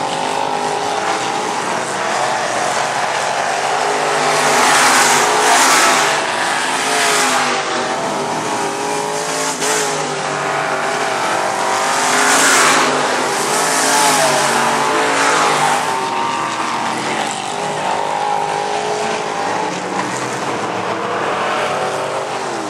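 A pack of dirt-track modified race cars running hard around the oval, several engines at once, their pitch rising and falling. The sound swells as cars pass close by, around five seconds in and again around twelve to fifteen seconds in.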